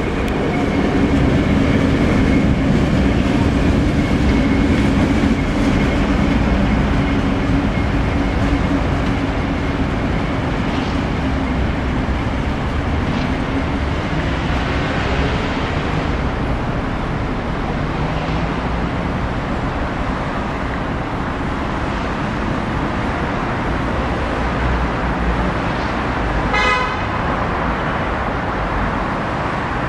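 DF5 diesel-electric shunting locomotive's engine running as it pulls away, its drone strongest early on and then fading into steady city traffic noise. A brief horn toot sounds near the end.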